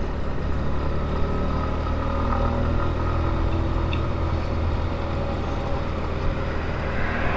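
Motorcycle engine running steadily at cruising speed, a low even drone with road noise.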